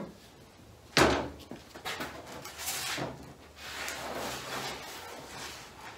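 A sharp knock about a second in, then a plastic body-filler spreader scraping and working filler across a corrugated plastic (Coroplast) mixing board, in repeated rubbing strokes.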